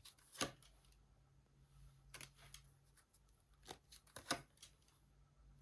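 Tarot cards being handled: a handful of faint, sharp card snaps and flicks, the loudest about half a second in and again near the four-second mark.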